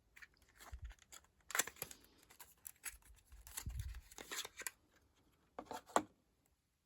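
Hands handling a cosmetic product and its packaging: irregular rustling, crinkling and sharp clicks, with a loud click about a second and a half in and another near the end.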